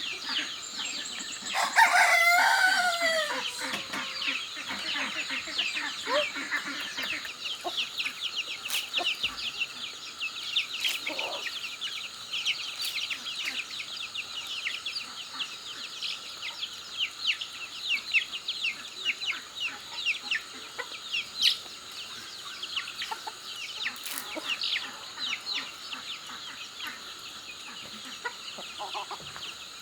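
A rooster crows once, about two seconds in, the call falling in pitch at its end. Rapid high chirping and clucking continue throughout.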